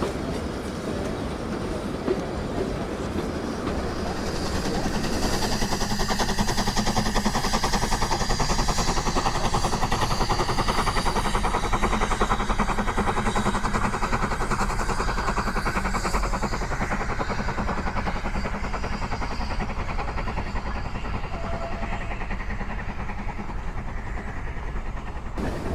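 Vintage steam train of the Furka mountain railway running past, its carriage wheels clicking rapidly over the rails above a steady rumble; it grows louder about five seconds in, then slowly fades.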